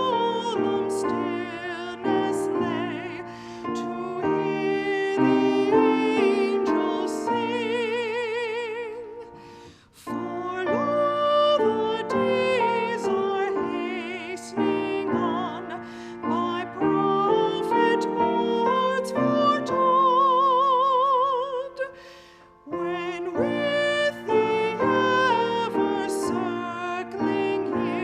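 A hymn sung with strong vibrato over piano accompaniment, in long sustained phrases with two short breaths between them.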